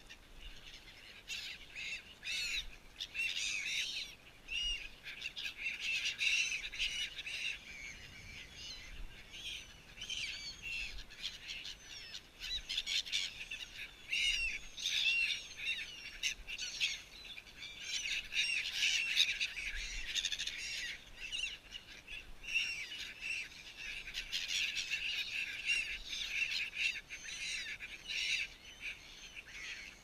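A flock of gulls calling over and over while they crowd in to be fed: many short calls overlapping, coming thick and fast.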